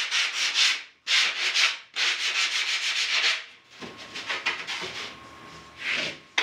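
Sanding a foam surfboard blank by hand: three long, loud scraping strokes, then lighter, quieter rubbing, and one more stroke near the end.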